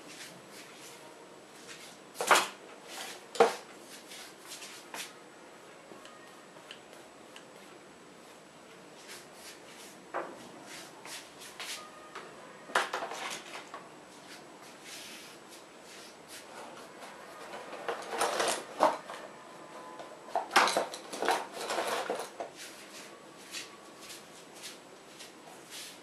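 Scattered knocks, clicks and rattles of small objects being handled and set down, coming in irregular bursts, with a longer stretch of clatter about three quarters of the way through.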